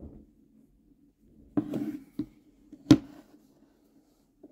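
Hands setting an iPhone and an AirPods case down on a hard tabletop: a short knock and rustle about a second and a half in, a small tap, then one sharp click about three seconds in, the loudest sound.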